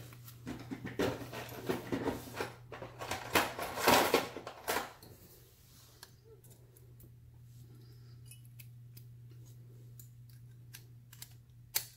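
Small metallic clicks, taps and scrapes from handling a brass euro cylinder lock and a pair of pliers while fitting its retaining clip. A dense run of clicks and rattles fills the first five seconds, then only sparse faint ticks follow, with one sharper click near the end.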